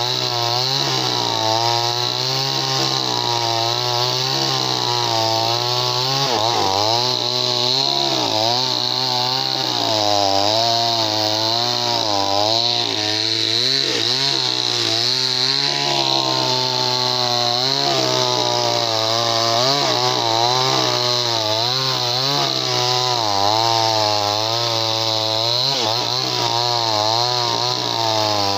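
58cc two-stroke chainsaw with a 20-inch bar running under load while sawing wood. Its engine note rises and falls over and over as it works through the cut.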